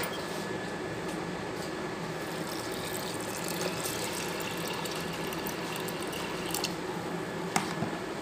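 Water poured from a jug into an aluminium pressure cooker onto horse gram: a steady gushing pour that stops about a second and a half before the end. A short knock follows soon after.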